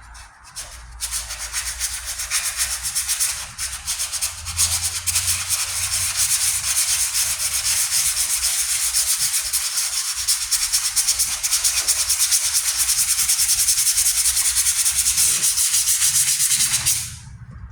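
Hand sanding with a worn sheet of 120-grit sandpaper: fast, steady back-and-forth scratching strokes over the primed and filled patch on a steel truck tailgate. It starts about a second in and stops abruptly just before the end.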